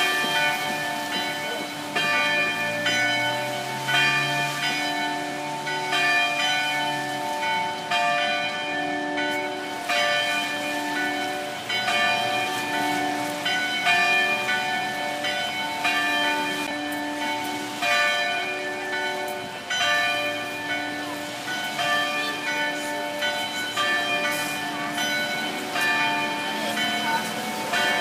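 Church tower bells pealing: several bells of different pitch struck one after another, about one or two strikes a second, each ringing on into the next.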